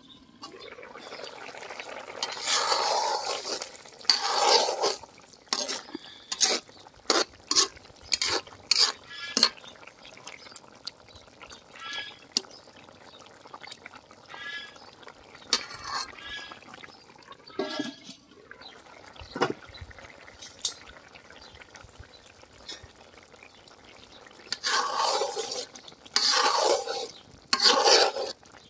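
Metal ladle stirring a steaming fish and amaranth-stem curry in an aluminium pot, with repeated clicks and knocks of the ladle against the pot and the wet sloshing of the curry. There are longer scraping stretches about two seconds in and again near the end.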